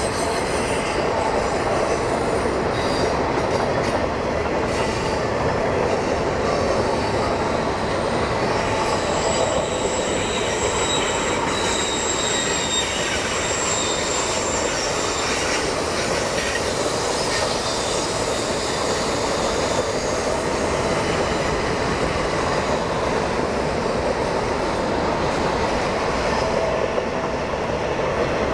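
Intermodal freight cars loaded with highway trailers rolling past on a curve: a steady rumble of steel wheels on rail. Thin, high wheel squeals come in and out, strongest through the middle of the passage.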